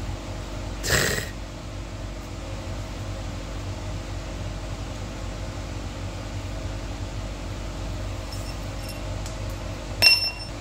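Metal clanking from work on an engine: a short scrape about a second in, a few light metallic clinks, then one sharp ringing metal clank near the end, over a steady low hum.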